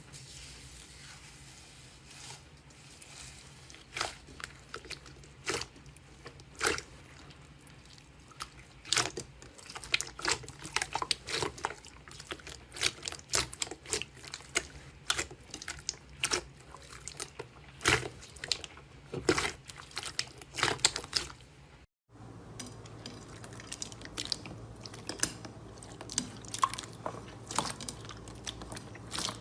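Hands squishing and poking slime, making irregular wet clicks and pops, sparse at first and much busier after about nine seconds. The sound breaks off briefly about three quarters of the way through and resumes.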